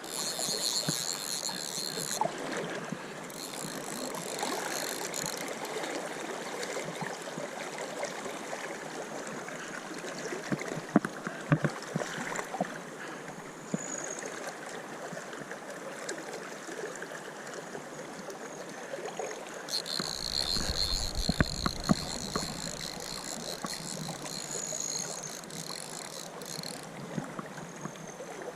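River water rushing steadily, with scattered clicks and knocks. A high buzzing comes and goes: briefly at the start, again a few seconds in, and for a longer stretch with a low rumble about two-thirds of the way through.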